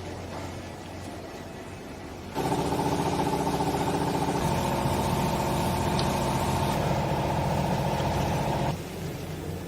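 Hydraulic clothing baler: its motor hums steadily, then a little over two seconds in the hydraulic pump comes under load with a much louder, pitched whine for about six seconds, starting and stopping abruptly, as the press stroke runs.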